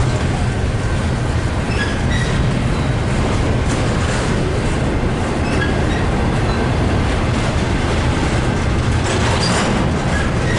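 A train rolling past, its wheels on the rails making a loud steady rumble with a few brief high squeals and a cluster of sharp clicks about nine seconds in.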